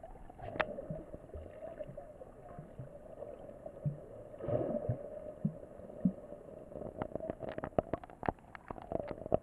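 Muffled underwater sound picked up by an action camera in its waterproof housing: a steady hum with a few short low blips about halfway through, then a quick run of sharp clicks near the end.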